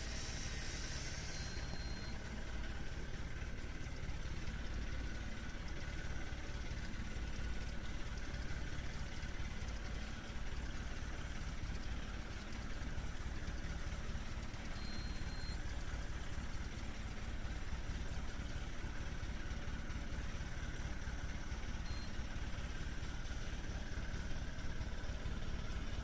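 Steady low rumble of a fishing boat's engine idling.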